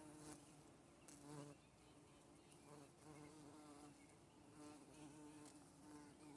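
Bees buzzing, a faint low hum that swells and fades again and again as they move about.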